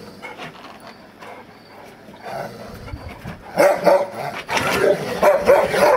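Newfoundland dogs play-fighting, with loud, rapid growls and barks starting about three and a half seconds in.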